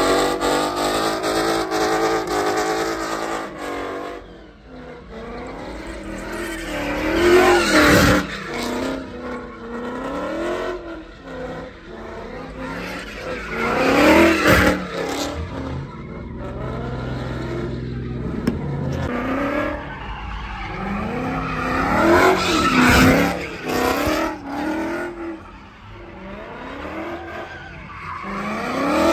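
A car spinning donuts: its engine revs up and drops back over and over while the spinning tyres screech on the pavement. It gets loudest three times as the car swings close, about 7, 14 and 23 seconds in.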